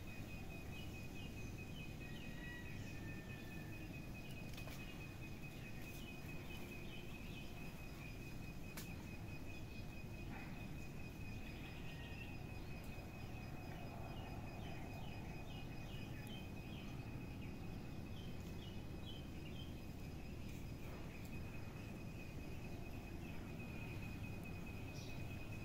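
Outdoor background noise: a steady thin high-pitched tone throughout, with repeated runs of quick, short, high chirps from small birds over a low even rumble.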